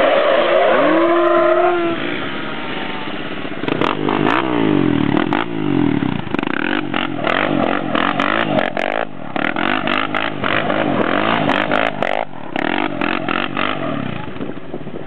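Sport quad (ATV) engines revving hard while the quads spin donuts on asphalt. The pitch sweeps up and down over and over, with a short rising rev at the start.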